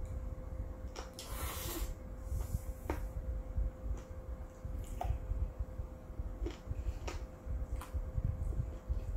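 Close-miked eating: a noodle slurp of spicy mixed noodles (bibim-myeon) about a second in, then chewing with a few sharp clicks of metal chopsticks against a ceramic bowl.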